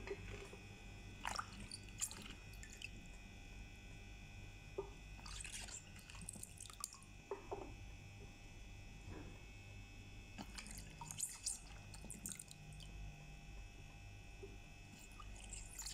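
Hands stirring and lifting sliced raw potato strips in a basin of salted soaking water: faint splashes and drips of water at irregular intervals, over a faint steady hum.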